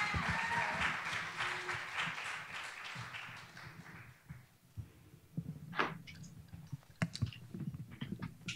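Audience applause tailing off over the first few seconds, followed by scattered taps and knocks.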